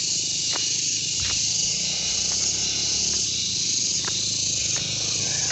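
Steady, high-pitched chorus of insects chirring without a break, with a few soft footsteps on a dirt path.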